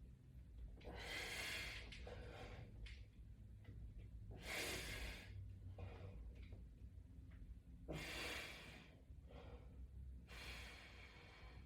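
A man breathing hard as he presses against heavy resistance bands. There are four forceful exhales about three seconds apart, with quieter breaths between.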